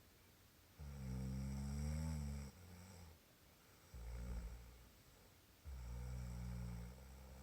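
A sleeper snoring: three low snores, a long one about a second in, a short one near the middle, and another long one near the end.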